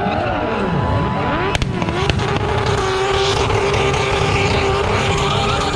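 A car engine at high revs during a burnout: it sweeps down and back up in pitch, gives a sharp crack about a second and a half in, then holds a steady high pitch over the noise of spinning tyres.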